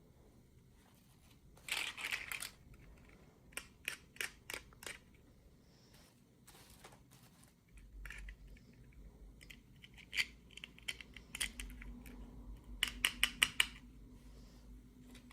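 Toy packaging being opened by hand: bursts of crinkling and sharp clicks and snaps, in several short clusters.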